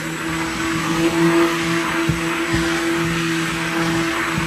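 Handheld stick blender running steadily in a bowl of cold process soap batter, mixing in glycerin added at trace.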